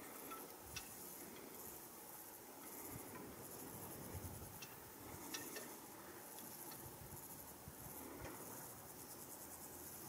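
Crickets chirping steadily in the grass, a high, finely pulsing trill, with a few faint short clicks.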